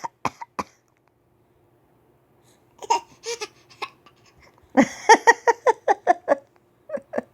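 A young boy's short, forced fake coughs, a few at the start and a few more about three seconds in, then a quick run of laughing bursts around five seconds in.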